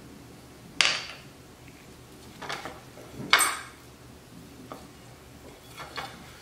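Fireworks going off: two loud, sharp bangs about a second in and about three seconds in, each trailing off briefly, with fainter pops between them and near the end.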